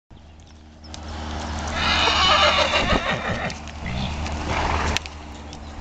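A horse whinnying about two seconds in, one call lasting roughly a second and a half. A shorter, quieter sound follows near the end.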